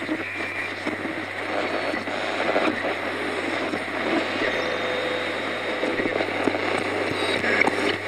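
Old radio being tuned across a band: continuous static and hiss over a steady low hum, with faint whistling tones drifting in and out as the dial passes signals.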